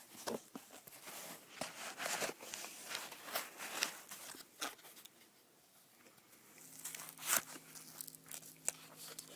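Handling noise of a folding knife being fitted into its case: rustling, scraping and a series of clicks, a quieter pause past the middle, then one sharper click.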